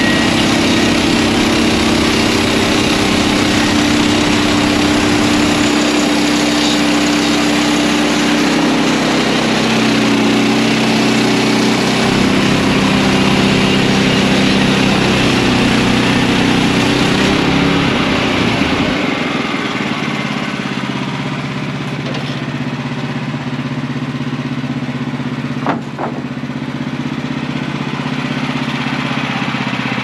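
Woodland Mills HM130MAX portable band sawmill running under load, its engine steady and the band blade sawing through a log. About two-thirds of the way in the sawing noise drops away and the engine runs on lighter as the cut finishes; a single sharp click comes near the end.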